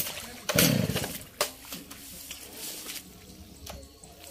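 A Stihl MS 660 two-stroke chainsaw being pull-started: one sharp pull on the recoil starter, the engine turning over briefly with a fast rattle but not catching.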